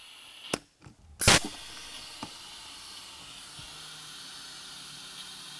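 Compressed air hissing steadily through a locking air chuck and flow meter during a flow test. About a second in there is a short, sharp blast of air, after which the hiss holds even as air flows out of the rig.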